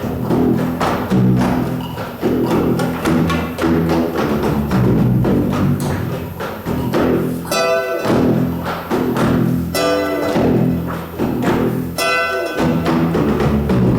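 Music with steady low tones and many percussive strikes, with three short, bright pitched notes about two seconds apart in the second half.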